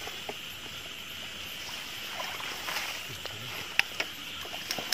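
Night field ambience: a steady high chorus of insects, with rustling as a pole and legs push through grass and taro leaves, and a few sharp clicks near the end, the loudest a little before four seconds in.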